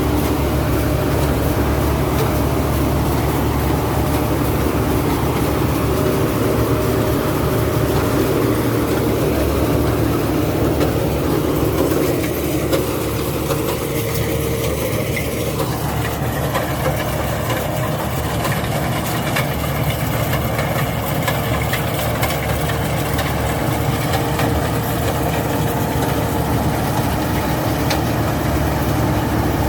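Rice combine harvester's engine running steadily, with the steady noise of its machinery.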